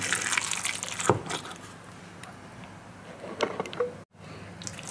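Wooden spoon stirring a wet raw ground pork embutido mixture in a glass bowl: soft squelching with a few sharper knocks. The sound cuts out briefly about four seconds in.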